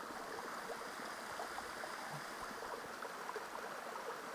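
Steady rush of a small alpine glacial waterfall, its meltwater splashing and flowing without change.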